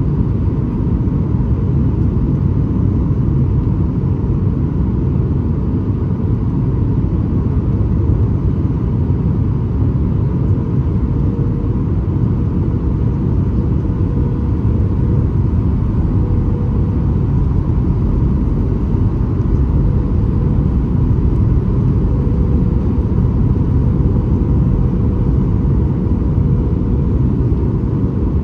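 Steady cabin rumble inside a Boeing 737 MAX 8 in flight, descending toward landing: engine and airflow noise, with a faint steady whine over it.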